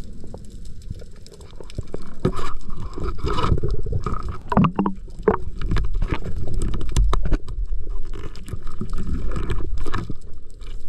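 Underwater noise as heard through an action camera's housing: rumbling water movement with many irregular knocks and clicks, a cluster of louder knocks about halfway through.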